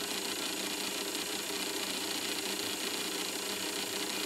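Reefbot water tester's pump motor running with a steady hum and hiss. It is flushing RODI water through the cleaning chamber as part of the repeated needle-cleaning cycle.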